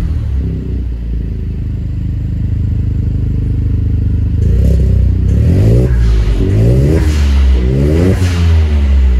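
Vehicle engine idling with a deep, full-bodied rumble, then revved in about four quick blips roughly a second apart in the second half, each one rising and falling in pitch.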